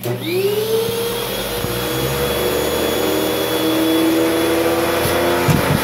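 Upright vacuum cleaner switched on, its motor spinning up with a rising whine and then running steadily with suction through the hose. A few knocks come near the end.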